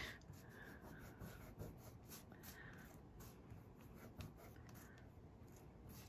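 Faint, scratchy rubbing of fingertips on wet paper in many short strokes: the soaked backing paper of a toner-copy gel medium transfer being rubbed away to leave the image.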